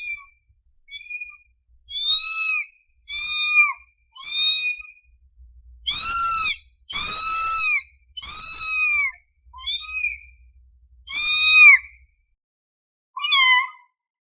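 Kitten meowing over and over in high-pitched calls that rise and fall in pitch, about a dozen in a row with the loudest near the middle: a hungry kitten calling for its mother.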